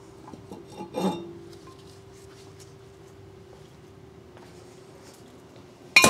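A metal clink with a short ring about a second in, as steel brake parts and tools are handled, then only a faint steady hum. A loud ringing metal clang starts at the very end.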